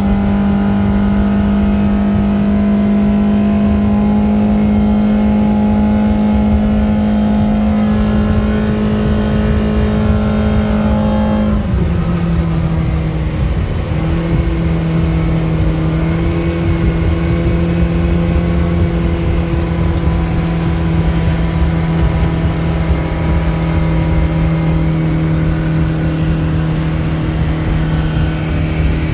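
Yamaha four-stroke outboard running steadily with the boat on plane. Its pitch drops a step about twelve seconds in and then holds steady, over a constant low rushing noise.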